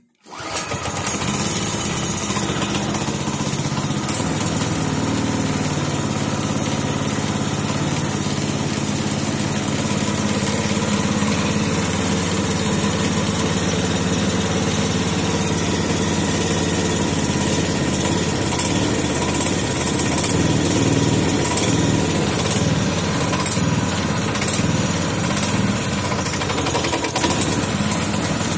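A 212cc Predator single-cylinder four-stroke engine in an Arctic Cat 120 snowmobile catches about half a second in and then runs steadily with a little throttle on it.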